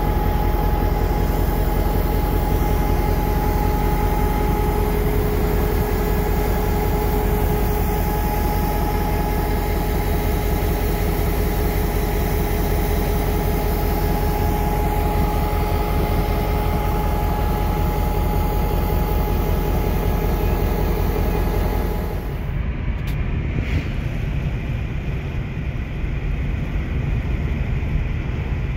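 EMD GL18B diesel locomotive idling at close range: a steady low engine rumble with a held whine over it. About three-quarters of the way through it cuts to a quieter wind rush on the microphone.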